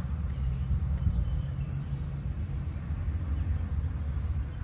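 Outdoor ambience: a steady low rumble with a few faint high chirps near the start.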